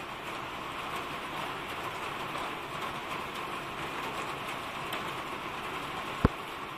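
Steady rain falling, a constant hiss, with a single low thump near the end.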